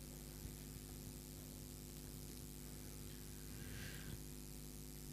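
A quiet pause holding only a steady low electrical hum with a faint hiss under it.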